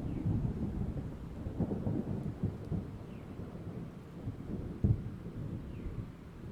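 Thunder rumbling and crackling, slowly dying away, with one sharper crack about five seconds in, over rain.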